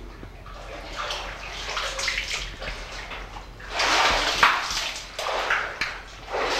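Water sloshing and splashing in irregular swishes as a caver moves through a wet cave passage, loudest about four seconds in, with a sharp knock partway through.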